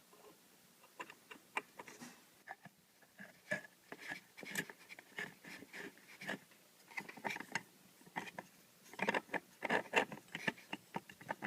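Scattered light clicks and knocks of hand work on a small wooden homemade wire stripper, coming irregularly and thickening near the end.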